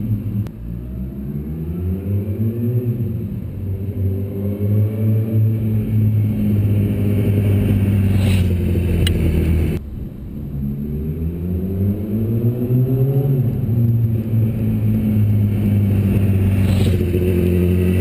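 Yamaha YZF-R1's inline-four engine revving, its pitch climbing and falling back several times over a steady low drone. The sound breaks off abruptly about ten seconds in and picks straight up again.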